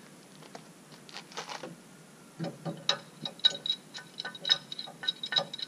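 Metallic clicking of a long-handled wrench working the large nut that holds a trailer hitch ball, starting about two and a half seconds in as a run of quick, irregular sharp ticks with a bright metallic ring.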